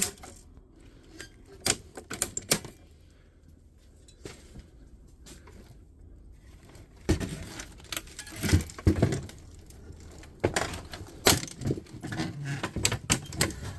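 Plastic and metal parts of a fax machine clicking and clattering as it is taken apart by hand. A few sharp clicks come first, then a quieter stretch, then busier rattling and knocking in the second half.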